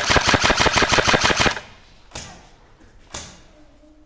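Airsoft gun firing a full-auto burst of about a second and a half, roughly ten shots a second, followed by two single shots about a second apart.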